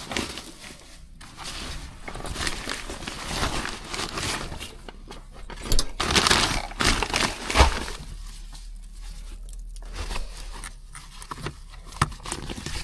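Rummaging through belongings: irregular rustling and crinkling with scattered knocks and clicks.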